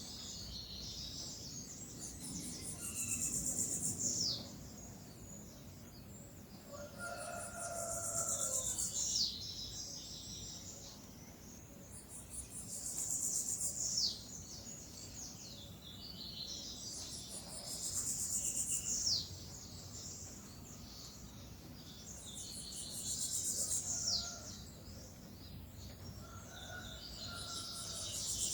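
A bird repeating the same short phrase about every five seconds: a high, buzzy trill that ends in a quick falling note. A few lower calls from another bird come in twice.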